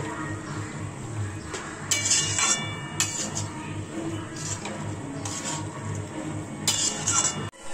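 Metal spatula scraping and clinking against a steel kadai while stirring a thick, grainy coconut and jaggery mixture. There is a run of scrapes about two seconds in and another near the end, with a ring of metal on metal.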